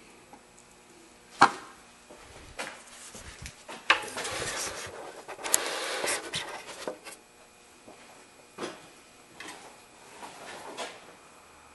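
Plastic cowl panel and its push-pin clips being worked loose and handled: several sharp plastic clicks and snaps, the loudest about a second and a half in, with a few seconds of rubbing and scraping in the middle.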